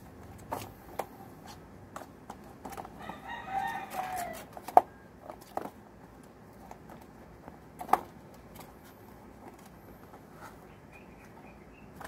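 Sharp clicks and knocks as kittens move about in a wire cage, the loudest just before five seconds in and again near eight. About three seconds in comes one drawn-out animal call, about a second long, whose pitch drops at the end.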